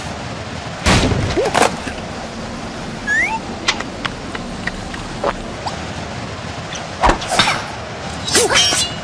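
Cartoon sound effects: a heavy thud about a second in, then a quick rising whistle, small ticks, and more knocks and thumps near the end.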